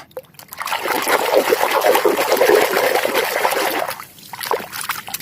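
Water splashing and trickling as a plastic toy is swished and rubbed clean in a basin of water, dense for about three seconds, then quieter with a few small drips and knocks.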